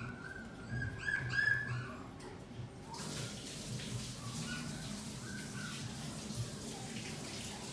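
Young pet animal giving short, high, thin whimpering calls, clustered about a second in with a few fainter ones later, over a steady hiss that grows louder about three seconds in.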